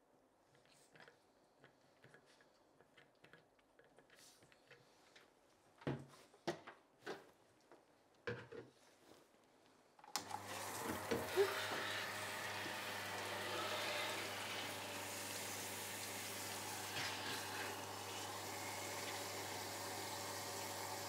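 A few light knocks and clicks of a plastic bottle being handled, then about ten seconds in a handheld shower head is turned on and water runs steadily, filling the bottle to dilute the conditioner, with a faint steady hum under the hiss.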